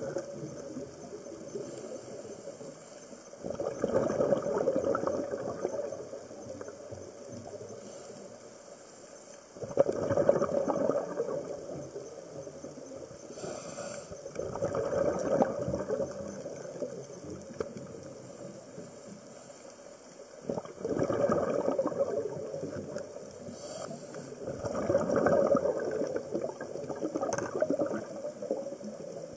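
Scuba diver breathing through a regulator underwater: a bubbly rush of exhaled air about every five to six seconds, five times, with a faint hiss of each inhale in between.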